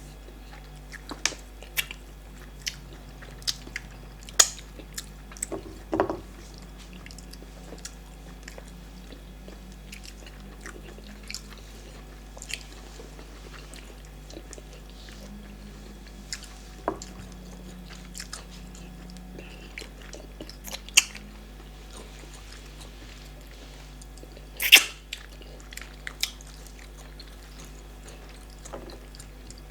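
Close-up eating sounds from a meal of starch fufu and bitter leaf soup with meat: chewing and mouth smacks with many scattered short clicks, a few louder, over a low steady hum.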